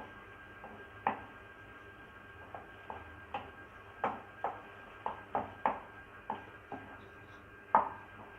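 A spatula knocking against a cooking pan while carrot halwa is stirred: about a dozen sharp knocks at irregular intervals, the loudest about a second in and near the end.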